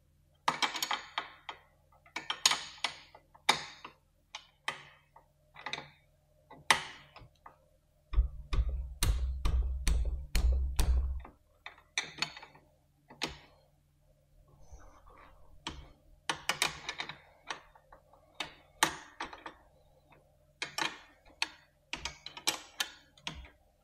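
A wrench clicking and clanking on the steel rear axle nut of an e-bike hub motor as it is loosened, in irregular clusters of sharp clicks. A low rumble runs for about three seconds near the middle.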